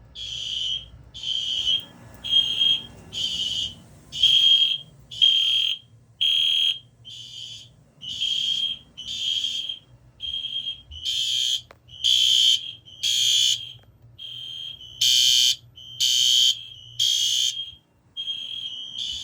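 Fire alarm horn sounding in alarm during a system test: a high-pitched tone pulsing about once a second, louder in the second half.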